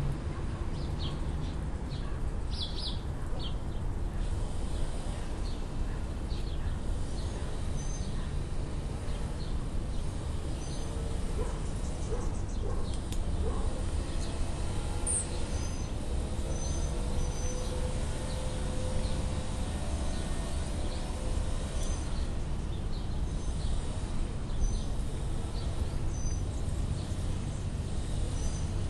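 Outdoor ambience: a steady low rumble, with scattered short, faint bird chirps.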